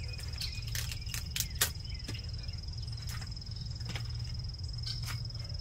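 Steady high-pitched insect song, one unbroken tone over a low steady hum, with scattered light clicks and rustles from hands setting bait leaves in and around a wire cage trap.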